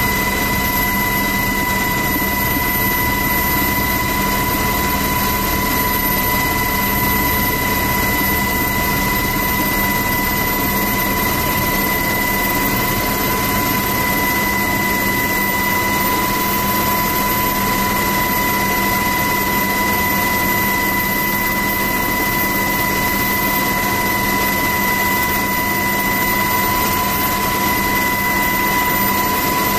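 Interior noise of an MH-60 Seahawk helicopter in flight, heard from the cabin by the open door: steady rotor and engine noise with a constant high-pitched whine.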